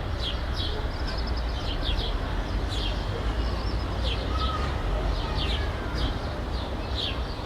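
Residential city ambience: small birds chirping over and over above a steady low hum of distant traffic.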